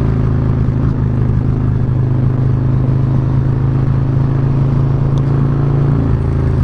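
Harley-Davidson Low Rider S V-twin engine running steadily under way while cruising. Its note shifts slightly near the end.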